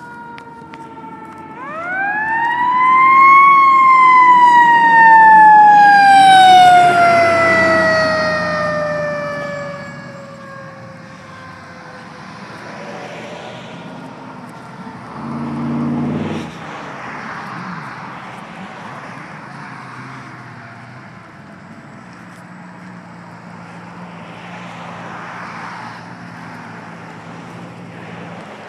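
Fire engine's mechanical siren winding up to a high pitch over about two seconds, then slowly falling in pitch over several seconds as it coasts down. About sixteen seconds in there is a short, low horn blast, followed by a steady low engine hum.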